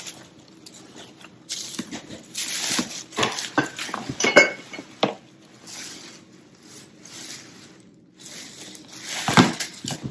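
Artificial autumn leaves and garlands rustling as they are rummaged in a clear plastic storage bin, with scattered clicks and knocks of decorations against the bin; the loudest knock comes near the end.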